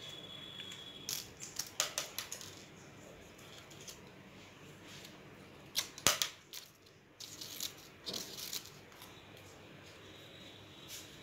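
Paper cutouts being handled and pressed onto a wall: scattered paper rustles and light taps in a few short clusters, the sharpest tap about six seconds in.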